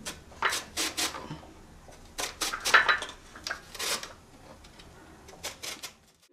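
Carrot being grated on a flat stainless steel grater: short scraping strokes in runs of three to five, about five a second, with short pauses between the runs.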